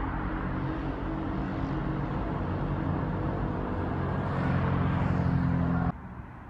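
Nearby road traffic: a motor vehicle engine hums steadily over tyre and traffic noise, growing louder after about four seconds, then stopping abruptly about six seconds in, leaving fainter background noise.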